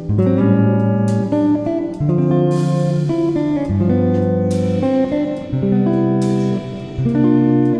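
Background music: guitar chords, changing about once a second, with a few sharp hits where the chords change.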